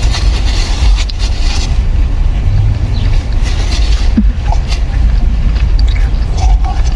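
A car's engine idling, heard inside the cabin as a loud, steady low rumble. A few faint small clicks sound over it.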